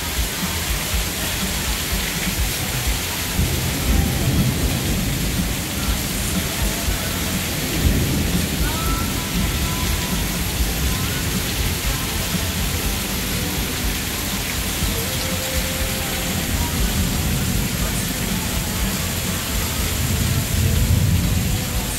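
Heavy rain pouring down steadily in a thunderstorm, with low rolls of thunder swelling up about 4 and 8 seconds in and again near the end.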